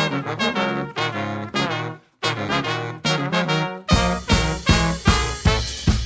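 Brass band playing, trumpets and trombones in short punchy phrases, with a brief full stop about two seconds in. Just before four seconds in, a drum kit comes in with a steady beat under the full band.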